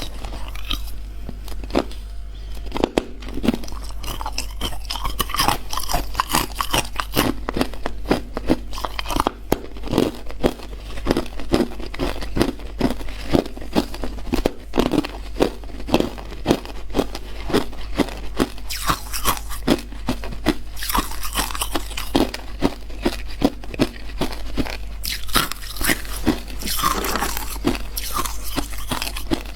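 Close-up crunching of hard clear ice being bitten and chewed, a quick, irregular run of sharp crunches several times a second, over a steady low hum.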